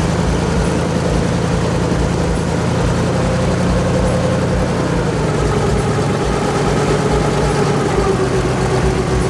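Airboat engine and air propeller running at low speed, a steady loud drone, shifting slightly in pitch about halfway through.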